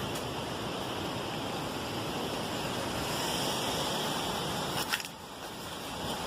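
Strong wind blowing hard against the microphone as a steady rushing noise, with one sharp click about five seconds in.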